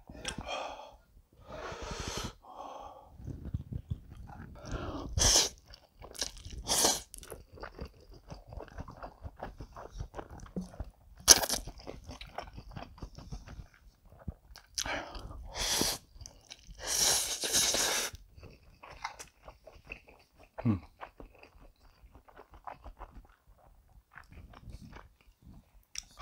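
Close-miked eating of saucy cream carbonara buldak stir-fried instant noodles: slurps and wet chewing smacks at irregular intervals, with one longer slurp about two-thirds of the way through.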